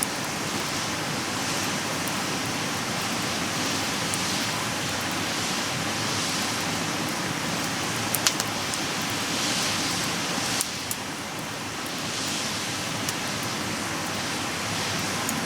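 Campfire burning: a steady hiss with scattered crackles of burning wood and a few sharper pops about eight seconds in.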